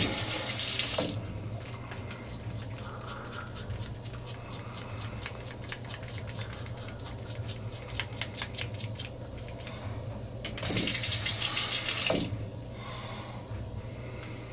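A water tap runs for about a second, then a quick run of faint, scratchy ticks, about five a second, as a five-blade cartridge razor is drawn over lathered stubble. The tap runs again for about a second and a half near the end.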